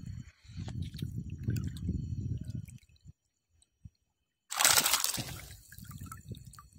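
Water sloshing and churning around a diver's underwater camera as he moves. It goes quiet for about a second and a half, then a sudden loud rush of water and bubbles comes about four and a half seconds in and fades into softer sloshing.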